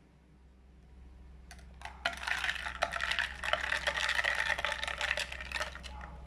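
Metal spoon stirring ice cubes in a glass of lemonade: a rapid run of clinks and rattles against the glass, starting about two seconds in and stopping near the end.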